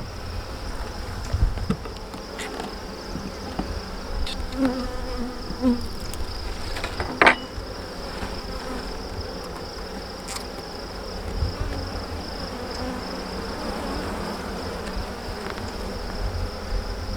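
Honeybees buzzing in a steady drone around an opened hive whose frames are out for inspection. A few short, sharp knocks break in, the loudest about seven seconds in.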